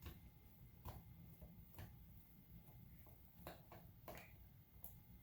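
Faint, scattered clicks and ticks of a small screwdriver working screws out of a PS4 controller's plastic back shell, over a low room hum.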